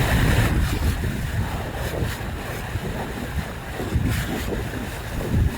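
Water rushing and splashing against a moving boat, with low wind buffeting on the microphone. Louder splashes come about half a second in, about two seconds in and about four seconds in.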